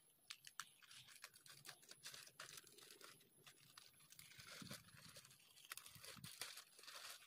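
Faint rustling and crinkling of a plastic packaging bag being pulled open by hand, with many small sharp crackles.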